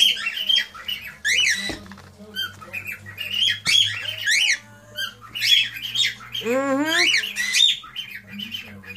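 Cockatiels calling: a rapid string of short chirps that rise and fall in pitch, with one longer rising whistle about six and a half seconds in.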